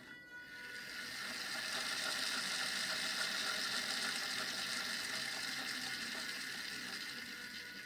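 Small yellow plastic DC gear motors whirring as they drive the wheels under PID control, their speed following the tilt of a hand-held sensor. The whir drops out briefly at the start as the motor output passes through zero and reverses, then builds and holds steady.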